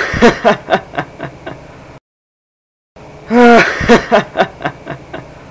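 Cartoon fox's laugh sound effect: a held note that breaks into a run of quick chuckles fading away. After about a second of silence the same laugh comes again.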